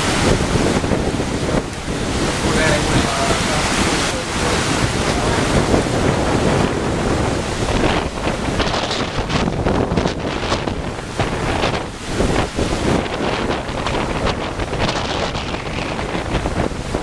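Hurricane-force wind gusting, with a loud rushing noise that swells and dips and wind buffeting the microphone.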